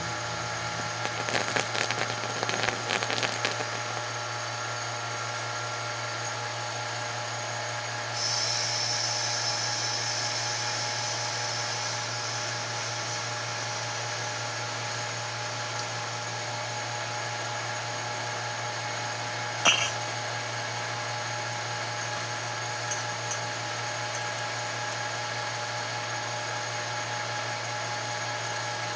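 Vacuum casting pump motor running with a steady hum and whine. A few light clinks come in the first few seconds, a hiss of air sets in about eight seconds in and slowly fades, and one sharp knock comes near twenty seconds.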